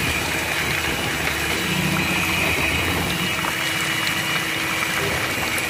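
Turbo electric hand mixer running steadily, its beaters whirring through thin, frothy steamed-cake batter.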